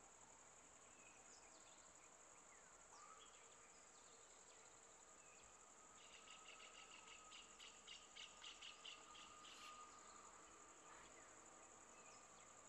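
Faint forest ambience: a steady high insect drone with scattered bird chirps, and about halfway through a run of quick repeated chirps, about three or four a second, lasting a few seconds.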